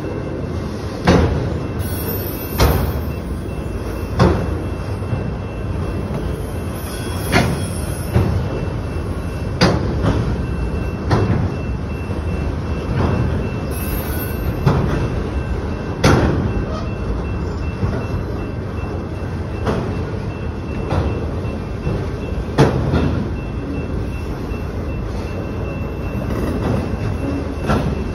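Autorack freight cars rolling past: a steady rumble of steel wheels on rail, broken by a sharp clank about every second and a half.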